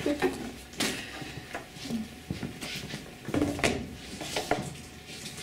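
Scattered knocks and rubs of a plastic folder and school desks and chairs being handled, in a small, echoing room.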